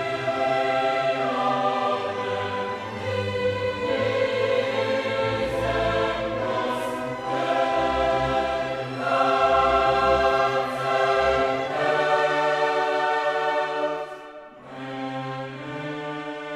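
Choral and orchestral music, a choir singing held chords over strings, dipping quieter about fourteen seconds in.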